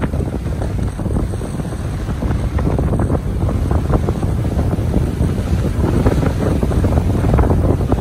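Wind buffeting the microphone in a loud, gusty low rumble, over small waves washing up onto a sandy beach.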